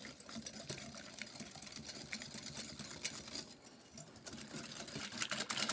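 Wire whisk beating a runny egg-and-sugar custard mixture in a glass bowl: rapid light ticking and swishing of the wires against the bowl, with a short pause about two-thirds of the way through.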